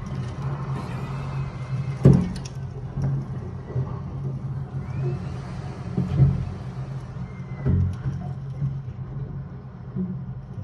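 Storm wind blowing hard in a steady low rumble, with three heavy thuds a few seconds apart, the loudest about two seconds in.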